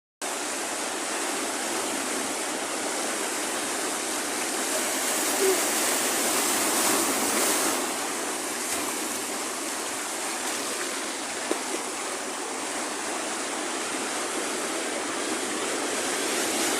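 Sea surf on a beach: a steady rush of water that swells about seven seconds in and again near the end as waves break.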